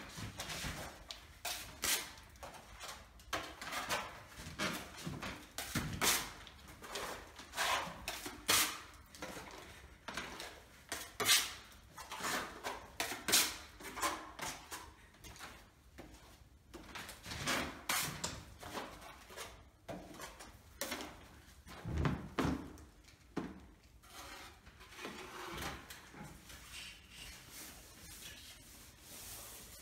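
Steel filling knife scraped across a plaster wall in repeated strokes, spreading filler over flaking paint. The strokes come about one or two a second and grow softer near the end.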